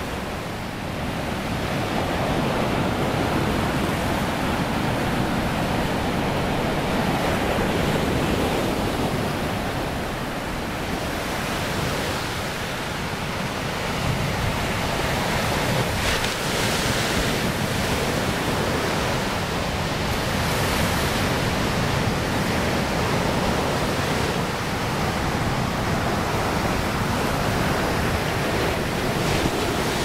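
Pacific Ocean surf breaking on a sandy beach: a steady wash of waves that swells and eases slowly.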